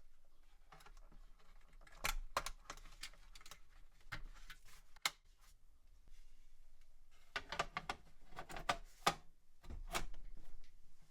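Irregular clicks and taps of hard plastic and metal parts being handled on a mini desktop PC, coming in clusters.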